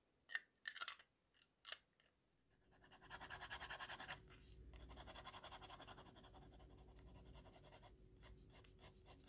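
A few sharp plastic clicks as the fountain pen's cap is handled, then the TWSBI Eco fountain pen's steel nib scratching across paper in quick sketching strokes, fastest about three seconds in.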